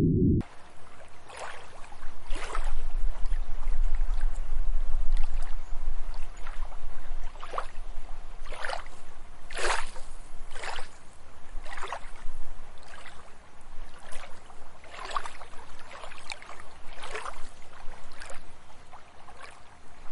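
Water lapping and sloshing in irregular, gentle splashes, one every half-second to second, over a faint steady hiss. A low hum cuts off abruptly about half a second in.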